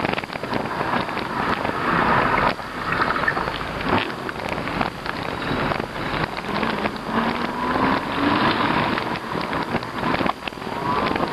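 Riding noise from a moving e-bike: wind buffeting the microphone over a steady rush of road noise, with frequent small clicks and rattles. Faint rising whines come through a few times.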